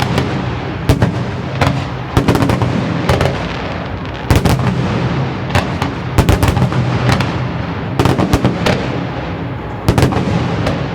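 Fireworks salute: loud bangs of shells bursting, some single and some in quick rattling clusters, over a steady low rumble.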